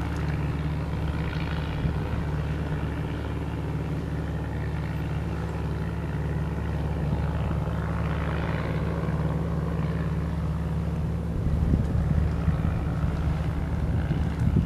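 A steady low engine drone, with wind buffeting the microphone from about three-quarters of the way in.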